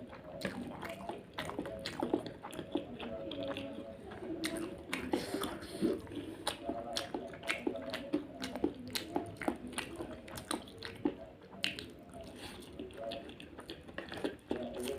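Close-up chewing and biting of spicy crispy instant noodles, with many quick wet clicks of the mouth and teeth throughout.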